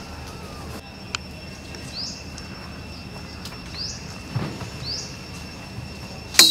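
Outdoor ambience: a steady high insect drone, with a bird giving three short rising chirps. A sharp click, the loudest sound, comes near the end.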